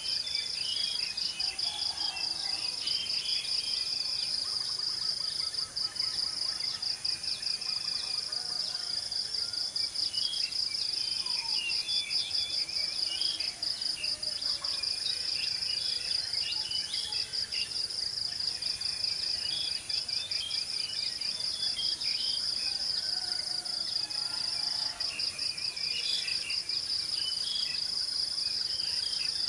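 Insect chorus: a steady, high, fast-pulsing trill that never lets up, with birds chirping on and off underneath.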